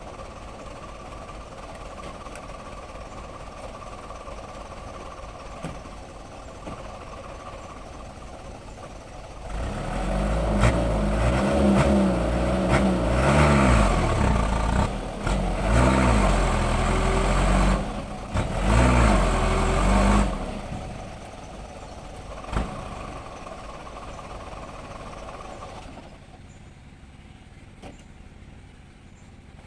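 Engine of a vehicle bogged in soft mud, running at idle, then revved hard in several rising and falling surges for about ten seconds as the driver tries to rock it free, then dropping back to idle and getting quieter near the end.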